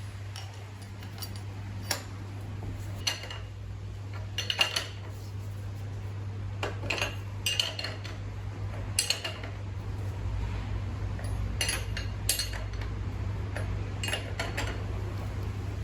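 Irregular light metallic clinks and knocks, like tools and small metal parts being handled and set down on a workbench, over a steady low hum.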